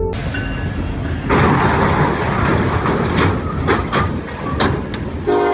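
Norfolk Southern diesel freight train striking a semi-trailer at a level crossing: a loud grinding rush that jumps louder about a second in, with several sharp metal bangs. The locomotive's horn sounds near the end.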